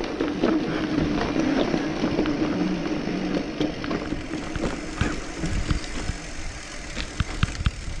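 Bicycle rolling downhill over a cracked concrete-slab road: tyre rumble and wind noise, with a steady hum that fades after about three seconds. Sharp knocks and rattles come from the bike jolting over slab joints, bunched in the second half.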